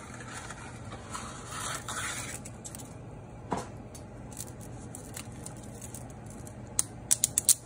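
Pot of salted water at a boil, bubbling steadily, as dry fettuccine is pushed down into it. A single sharp click about three and a half seconds in and a quick run of sharp clicks near the end.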